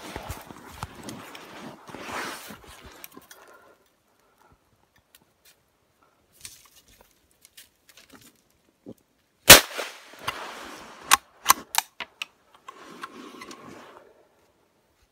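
A single loud gunshot about nine and a half seconds in, dispatching a wolf held in a foothold trap, followed by a few sharp clicks. Rustling noise fills the first few seconds.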